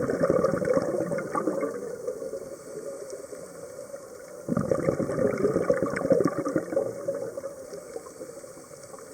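Scuba diver breathing through a regulator underwater. A burst of bubbling exhalation fades about two seconds in, and another starts suddenly about four and a half seconds in and dies away, with quieter stretches between.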